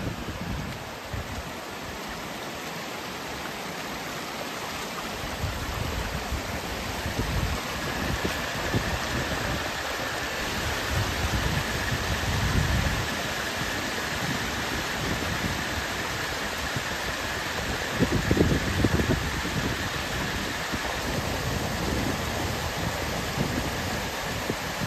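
Floodwater rushing and churning as it pours over a dry stone wall and across rough ground: a steady rush of white water from run-off off rain-saturated fields. Low gusty bursts come and go underneath, the strongest a little past the middle.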